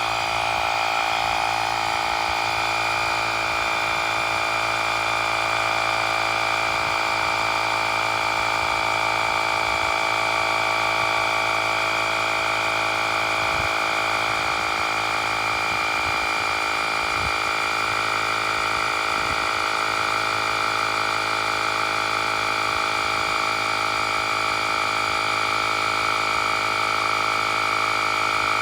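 Portable electric tyre inflator's small compressor running steadily while it pumps up a bicycle tyre, the pressure still climbing toward its automatic 33 psi cut-off.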